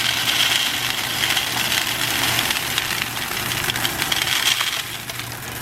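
Loose coins clinking and rattling as change is handled in a bulk candy vending machine, over a steady background hum.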